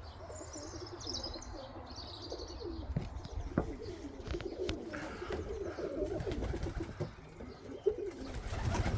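Domestic pigeons cooing repeatedly, with a few higher chirps near the start and some short knocks.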